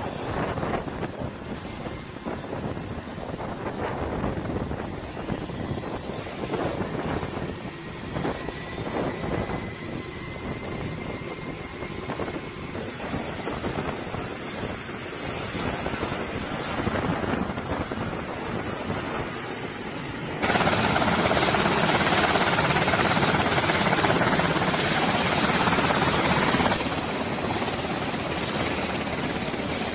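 MH-60R Sea Hawk helicopter running on the ground with its twin turboshaft engines and main and tail rotors turning. The sound jumps abruptly louder about two-thirds of the way through and drops back a little near the end.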